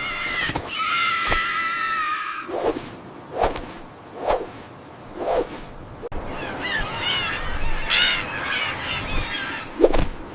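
Parrot calls: a held, wavering squawk in the first couple of seconds, then several short soft whooshes, then a run of quick chattering calls, with a sharp thump near the end.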